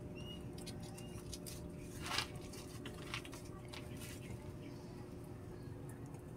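Wood cooking fire under pots crackling, with scattered small clicks and pops and one louder snap about two seconds in as the firewood is tended. A few faint short high chirps sound in the first second.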